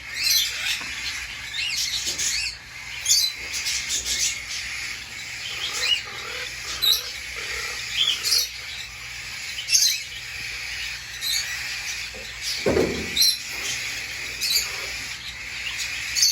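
Baby quaker parrots and cockatiels chirping: short high chirps about once a second over steady chatter.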